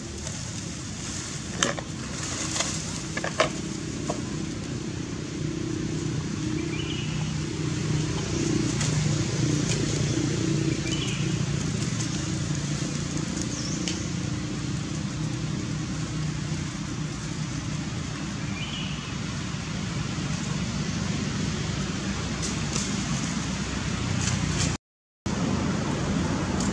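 Steady low engine rumble, like a motor vehicle running nearby, with a few sharp crackles in the first few seconds and three short faint high chirps. The sound cuts out for a moment near the end.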